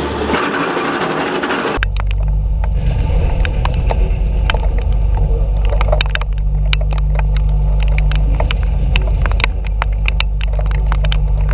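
Engine-driven wood chipper running under load: a steady low engine drone with frequent sharp cracks and snaps of branches being chipped. About two seconds in, a dense hiss gives way abruptly to the engine drone.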